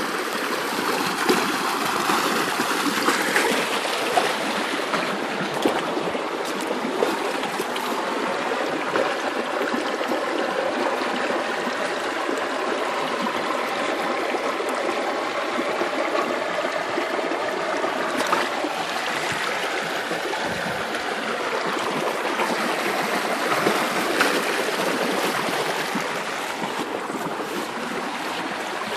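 Shallow, rocky creek water running and trickling in a steady rush.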